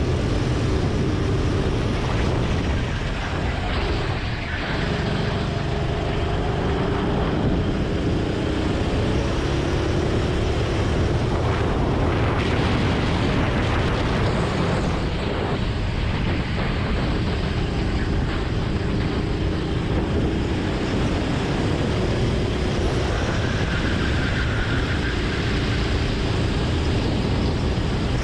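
Go-kart engine running hard at speed, a steady buzzing drone that eases slightly a few seconds in and then pulls on again.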